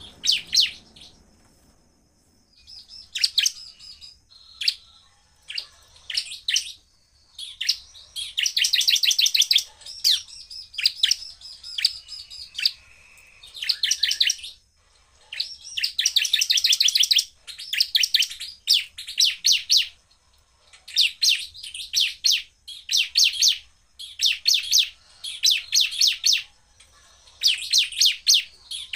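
Bar-winged prinia (ciblek) singing in very fast, rattling trills. The trills come in bursts of about a second each, repeated over and over with short pauses, and start a few seconds in.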